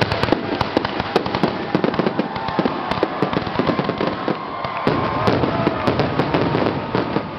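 Fireworks display finale: a rapid, dense barrage of aerial shells bursting and crackling, many bangs a second over a continuous rumble.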